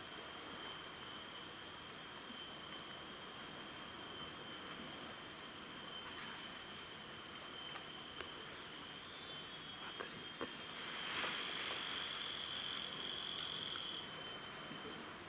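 Insect chorus: a steady high buzz under a higher trill that pulses about once a second. The chorus grows a little louder about eleven seconds in, and a few faint clicks and rustles come near the middle.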